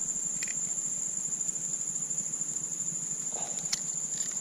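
Insects trilling in a steady, high-pitched chorus, with a few faint clicks.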